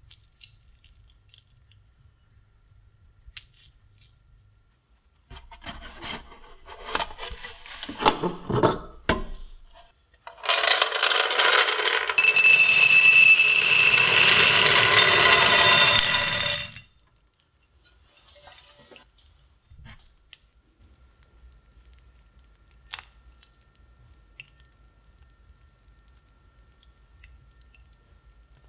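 Roasted peanuts poured out of a bread maker's metal baking pan onto a ceramic plate: a dense rattling cascade lasting about six seconds, with the pan ringing. A few seconds of rattles and knocks come shortly before it; otherwise only faint handling clicks.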